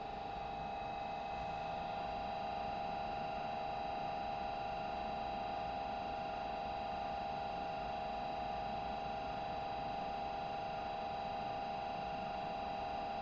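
DCC sound decoder in a model of Bulleid diesel 10201 playing its recorded diesel engine sound through the model's small speaker after the F1 ignition and start-up function: a steady engine drone with a high, even tone in it, the locomotive standing.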